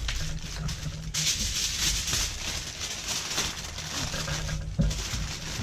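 Aluminium foil crinkling and rustling as it is folded tightly around a brisket, loudest from about a second in until near the end, with a single soft thump near the end.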